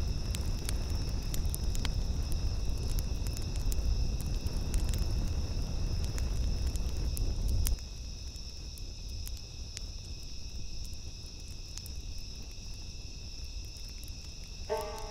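Bonfire crackling and rumbling, with a steady chorus of crickets chirping. About halfway the fire's low rumble drops away suddenly, leaving the crickets and a few faint crackles; musical notes come in near the end.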